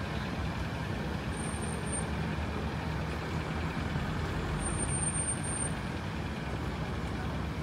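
Street traffic, with a vehicle engine running close by as a steady low rumble. Two brief high-pitched squeals sound over it.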